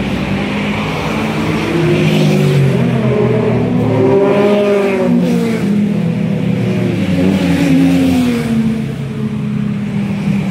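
Motor vehicle engine on the street, its pitch rising and then falling as it accelerates past, twice, over steady street noise.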